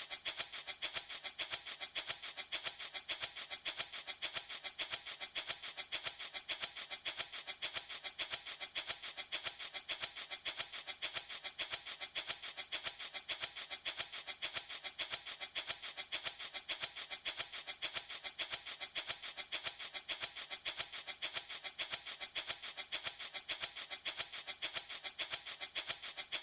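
Handmade baby rattle shaken in a steady, even rhythm, about three shakes a second, giving a bright, hissing rattle.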